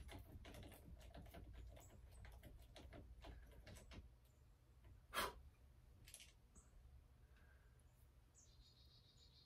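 Faint, quick small clicks of plastic and metal parts as a motocross handlebar lever and its mount are handled and adjusted, with one sharper click about five seconds in.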